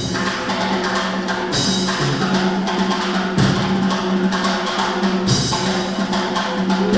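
Drum ensemble playing fast, with a drum kit and snare drum struck in quick strokes and rolls, over a held low tone that changes pitch a few times.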